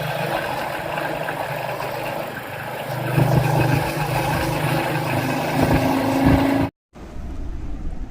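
Royal Enfield Bullet 350's single-cylinder engine running steadily, with its pitch rising near the end. It cuts off abruptly a little over six seconds in, and after a moment's silence a quieter low rumble follows.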